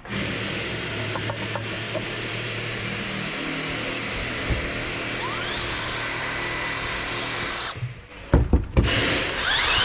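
A handheld power tool running steadily against metal, cleaning off rust and scale. It stops about eight seconds in, three sharp knocks follow, and then it spins up again with a rising whine near the end.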